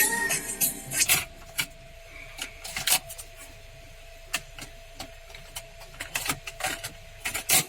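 Car stereo cassette player being operated: a series of sharp clicks and knocks, scattered and then quicker near the end, over a faint steady hum after its music stops.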